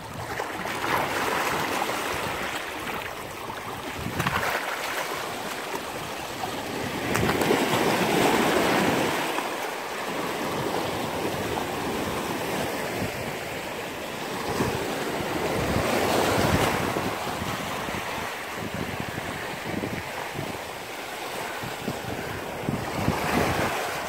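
Sea waves washing in and breaking over shoreline rocks, swelling and ebbing every few seconds, with wind buffeting the microphone.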